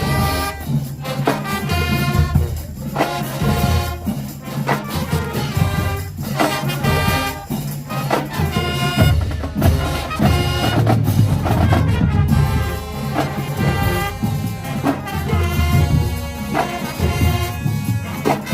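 Middle school marching band playing: brass horns in short chordal phrases over a drumline with heavy bass drums.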